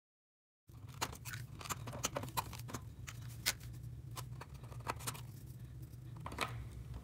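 Dead silence, then from about a second in, scattered light clicks and taps of small electronic parts being handled: electrolytic capacitors being fitted into an insect killer's metal housing. A steady low hum runs underneath.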